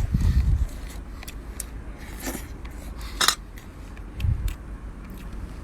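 Clicks, taps and scrapes of crab shell and eating utensils being handled while eating a crab. There is a louder sharp sound about three seconds in and low thumps at the start and about four seconds in.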